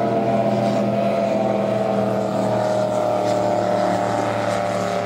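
Waterski racing powerboat engines running flat out, a steady drone whose pitch falls slowly as the boats pass.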